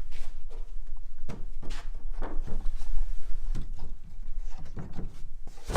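Pine wardrobe back panel being handled and slid into its slot, with a series of irregular wooden knocks and scrapes.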